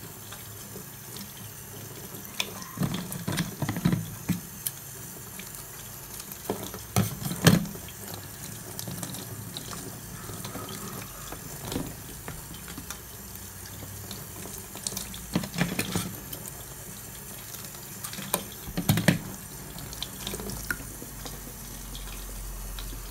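Raw shrimp being washed by hand in a plastic tub of water: splashing and sloshing in several short bursts as the shrimp are stirred, the loudest about seven seconds in, over a steady hiss.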